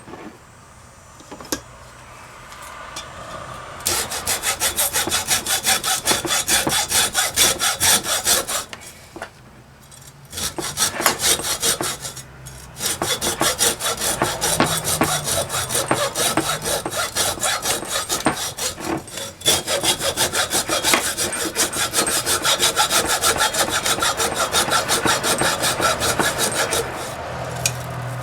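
Hacksaw cutting straight through the copper commutator of a small electric water-pump motor in quick, steady back-and-forth strokes. The sawing begins a few seconds in and stops briefly twice, about nine and twelve seconds in, before running on.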